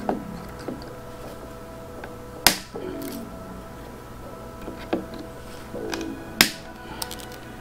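Soft background music with sustained tones, broken by a few sharp clicks or taps. The two loudest come about two and a half seconds in and again about six and a half seconds in.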